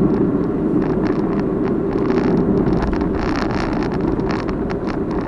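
Rapid, irregular clicking rattle from a defective Crosstour CT8500 dash camera's own body as it shakes on its dashboard mount, over the steady low road and engine rumble of a moving car heard from inside the cabin.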